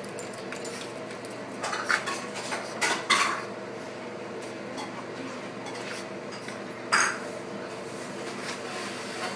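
A dog going at a window after a moth makes a few short clinks and taps. Several come close together about two to three seconds in and a sharp one about seven seconds in, over a steady low hum.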